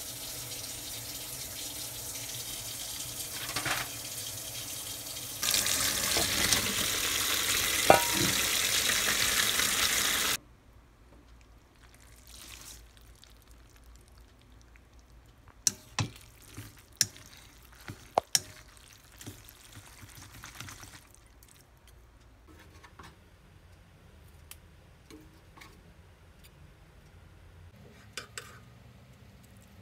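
Water running from a tap in a steady rush, growing louder about five seconds in and then shut off abruptly about ten seconds in. After that come a few scattered light clicks and knocks of kitchen utensils.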